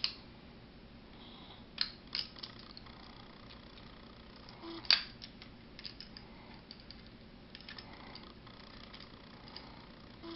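Steel parts of a 1911 pistol clicking and clacking as the slide is worked by hand on the frame during disassembly. A few sharp clicks, the loudest about five seconds in, then a string of lighter ticks.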